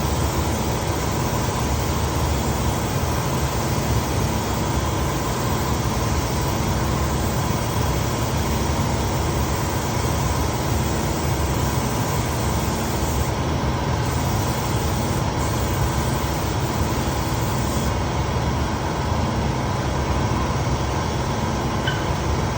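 Spray gun running steadily while spraying lacquer onto wood, a continuous hiss of air with a motor drone beneath, unbroken.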